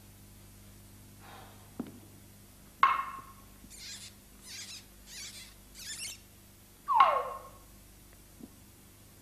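Comic percussion sound effects marking stage slapstick blows. A sharp ringing knock comes about three seconds in, then four short rasping shakes. A second knock near seven seconds has a ring that slides down in pitch.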